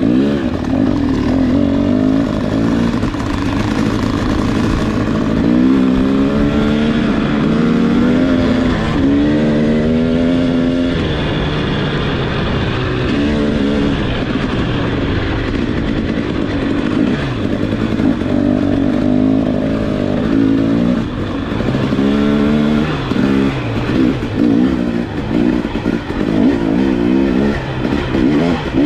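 KTM 300 two-stroke dirt bike engine being ridden hard, its pitch repeatedly climbing and dropping as the throttle opens and closes.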